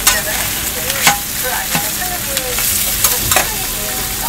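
Meat patty and split sausage sizzling steadily in oil on a flat-top griddle, with a few sharp clicks of metal utensils against the griddle.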